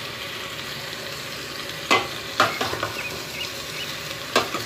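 Chicken pieces sizzling in a metal pot as a wooden spatula stirs them, the spatula knocking sharply against the pot three times.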